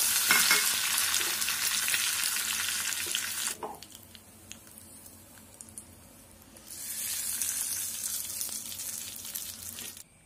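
Curry leaves sizzling in hot oil with mustard seeds and urad dal, a tempering for chutney. The sizzle dies down about three and a half seconds in, then a second stretch of sizzling starts near the middle and stops just before the end.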